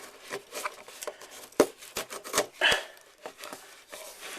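A key scraping and clicking against a shipping package while being used to cut it open, with several sharp knocks in the middle among scratchy rubbing.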